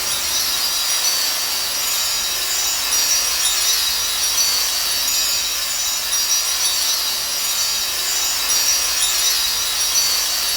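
A steady, harsh hiss with a fine crackle running through it, a monster-film sound effect from the King Ghidorah set; it holds level without a break.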